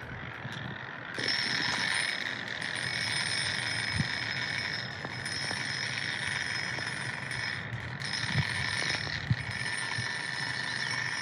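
A small handheld grinder runs against a slate slab, a steady high whine with grinding noise that starts about a second in after a few light taps.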